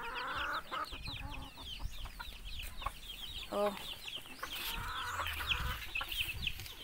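Native chicks peeping continuously in rapid, high, falling cheeps. A mother hen gives one short cluck about halfway through.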